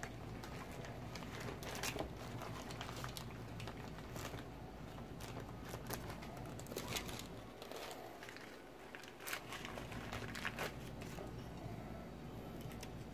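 Crumpled paper crinkling and crackling in short irregular bursts as it is pressed and dabbed onto wet spray paint to texture it.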